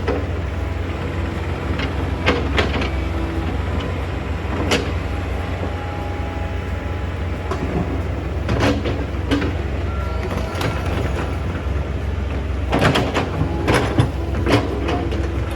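Hydraulic excavator's diesel engine running steadily under a low hum, with intermittent clattering knocks as its bucket works stony soil, coming thick and fast near the end.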